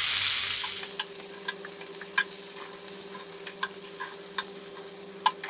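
Rosemary-garlic lamb chops sizzling in oil on a hot flat skillet, with metal tongs clicking against the pan every second or so as the chops are lifted off. The sizzle slowly fades, over a steady low hum.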